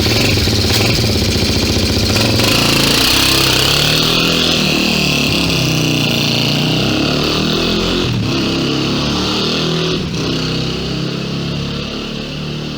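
Synthesized robot-transformation sound effect built around a motorcycle engine: the engine revving, slowed into slow motion, with pitch steps moving up and down and a bright hiss layered over it. Two sharp clicks come near the end, and the sound eases off a little toward the close.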